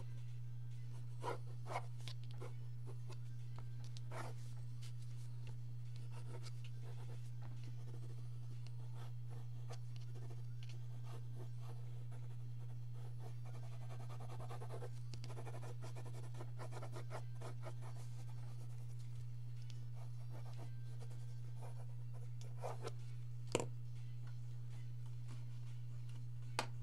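Graphite pencil lead scratching on paper in short, quick sketching strokes, with a denser stretch of rubbing strokes around the middle, over a steady low electrical hum. A single sharp tap comes near the end.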